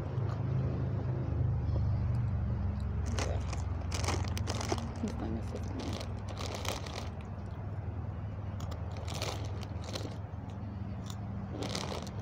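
Crunching and biting of food close to the microphone, in several short crisp bouts, over a steady low rumble.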